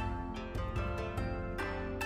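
Background music: a melody of plucked string notes, several a second, over a steady low bass.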